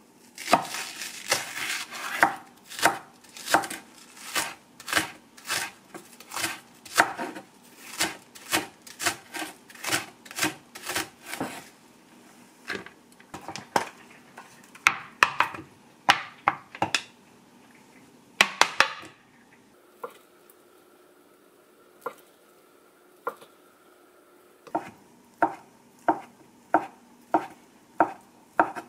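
Kitchen knife chopping food on a cutting board in quick, even strokes, about two a second. The strokes thin out past the middle and stop for several seconds, then pick up again near the end.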